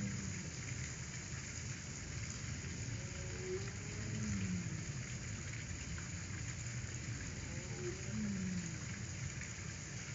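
Steady hiss of outdoor background noise, with a low call falling in pitch three times, about four seconds apart.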